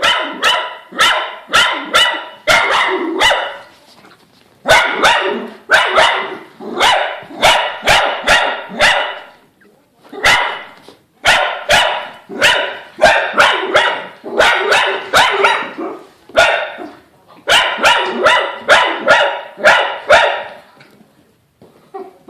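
Dog barking in play, loud rapid barks in runs of several at a time, with short pauses between the runs.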